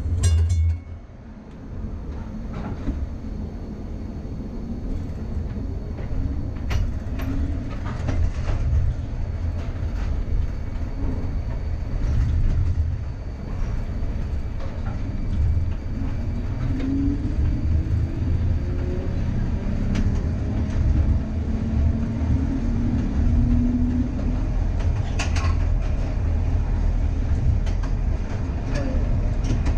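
Air-electric PCC streetcar running along the track: a steady low rumble of wheels on rail with scattered clicks. A sharp ringing strike comes right at the start, and a whine rises in pitch through the middle.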